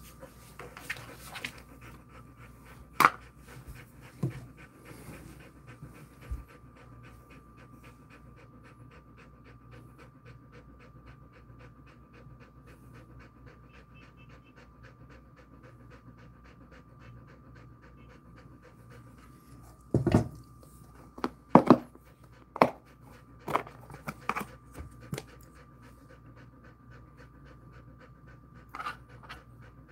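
A Jindo mix dog panting steadily with its mouth open and tongue out, cooling down after a walk. A faint steady high tone runs underneath, and a cluster of sharp clicks comes about twenty seconds in.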